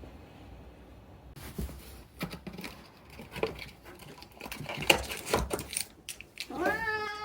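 Scattered taps, clicks and rustling, then a domestic cat begins a drawn-out meow near the end, rising and then falling in pitch.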